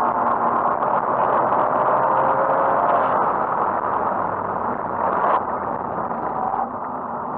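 Cabin sound of a BMW 335i at speed: the turbocharged straight-six engine running under load with road and wind noise. The sound drops suddenly about five and a half seconds in and again near the end.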